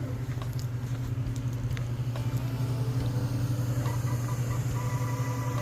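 A steady low rumble with a few faint clicks, and soft held tones coming in about four seconds in.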